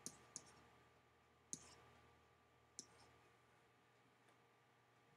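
Near silence with a few faint, sharp clicks from hand-writing an annotation on a computer screen: two close together at the start, then single clicks about 1.5 and 3 seconds in.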